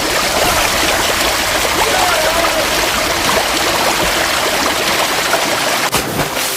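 Steady rushing, gurgling water, with a sharp click about six seconds in.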